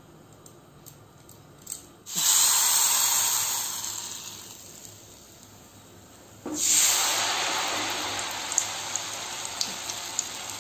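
Rose cookie batter sizzling in hot oil as the batter-coated metal mould is lowered in: a sudden loud sizzle about two seconds in that fades over a couple of seconds, then a second one a few seconds later that slowly dies down.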